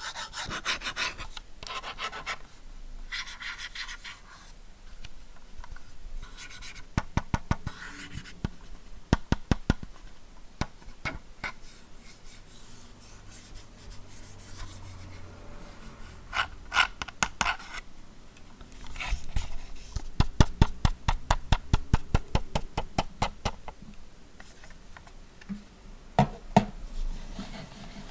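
Razer DeathAdder Essential gaming mouse being slid across a mouse pad with a scratchy rubbing. Several quick runs of sharp clicks come in between.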